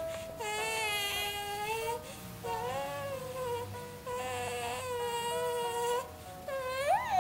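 Drowsy infant fussing in long drawn-out cries of about a second and a half each, breaking briefly for breath between them, with a rising and falling wail near the end.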